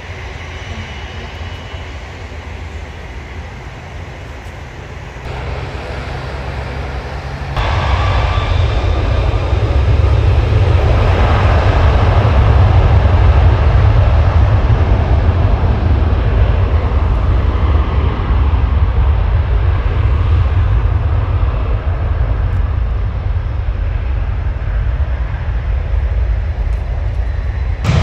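Jet airliner engines rumbling loudly as a widebody airliner moves along the runway, coming in suddenly after several seconds of quieter steady background noise and swelling to its loudest a few seconds later.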